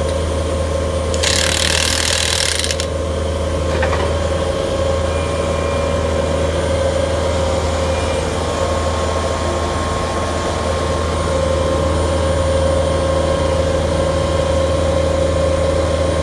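Engine of the helical pile-driving rig running steadily, a low hum with a steady whine. A hiss comes in about a second in and lasts about a second and a half, and there is a single click a little later.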